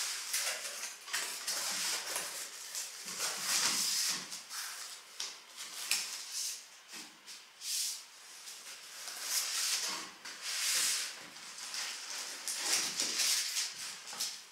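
Cardboard shipping box being opened and handled: the flaps and packaging rustle and scrape in irregular bursts, with a plastic-wrapped inner box lifted out near the end.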